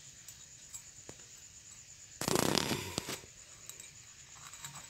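Hand handling noise: a brief rasping rustle about two seconds in, with a few faint clicks around it, as thin string is pulled tight and knotted around a glass beer bottle's neck.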